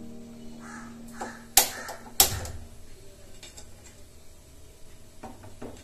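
A hand-held gas spark lighter clicks twice, the second time lighting a gas stove burner, which catches with a brief low rush. Later come a few light knocks as a pot is handled onto the grate.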